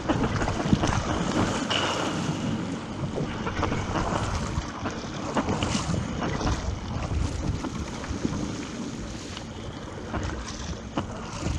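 Wind buffeting the microphone over water rushing and splashing around a surfski being paddled on the open sea, in uneven gusts and splashes.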